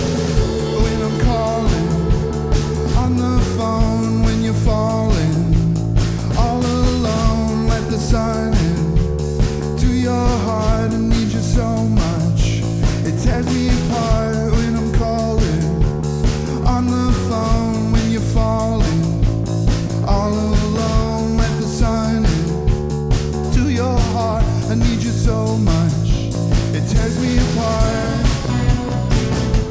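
A rock band playing a psychedelic-rock song with a steady beat.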